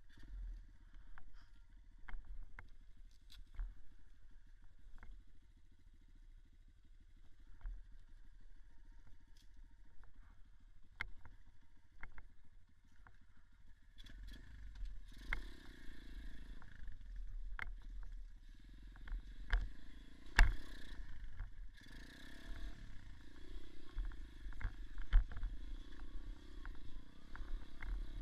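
Small dirt bike engine running at low revs with scattered knocks and clatter, then from about halfway louder, its revs rising and falling as the bike rides over rough ground.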